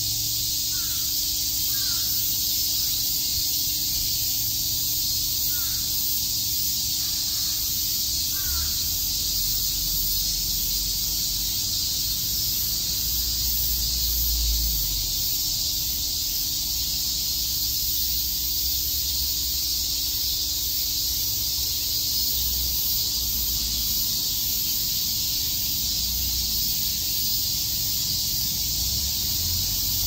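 A chorus of cicadas chirping in a continuous high, sizzling drone that holds steady throughout. A few faint short bird calls come through in the first several seconds.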